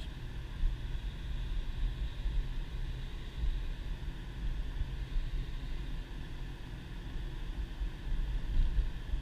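Inside the cabin of a 2010 Subaru Impreza driving on a snow-covered road: a steady low rumble of engine and tyre noise.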